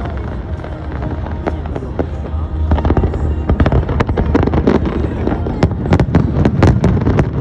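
Fireworks display: a rapid, irregular string of sharp bangs and crackles from bursting shells, over a steady low rumble. The bangs come thicker and louder from about three seconds in.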